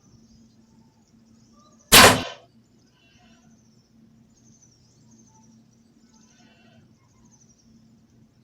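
A single loud gunshot about two seconds in, a sharp crack that dies away quickly, over faint high chirping calls.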